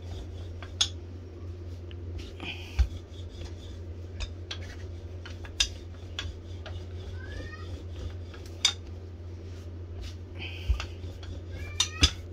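Wooden rolling pin being rolled back and forth over puff pastry on a wooden board, with scattered clicks and knocks, brief scraping, and a few short rising squeaks, over a steady low hum.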